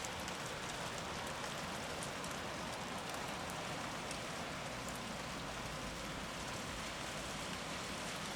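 Steady typhoon rain falling and splashing on surfaces: an even hiss with faint scattered drop ticks.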